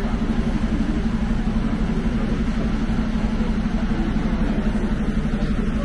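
Team coach's engine idling: a steady, low hum.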